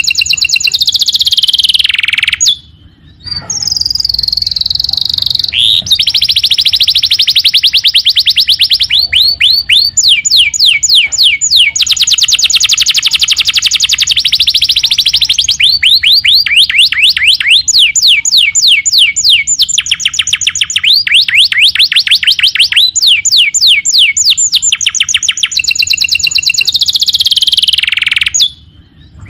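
Canary singing a long, loud song of rapid trills and rolls mixed with whistled gliding notes. There is a short break about three seconds in and another near the end.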